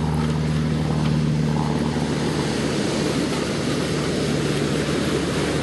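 A motor engine running with a low steady hum that fades out about two seconds in, over a steady rushing hiss.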